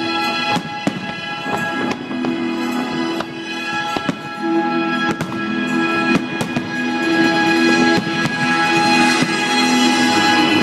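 Fireworks bursting in a string of sharp, irregularly spaced bangs over music with long held notes.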